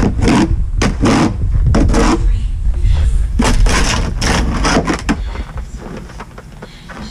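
Repeated scraping strokes, about one or two a second, over a steady low rumble, from outdoor footage of snow being cleared. The strokes thin out and the sound fades over the last two seconds.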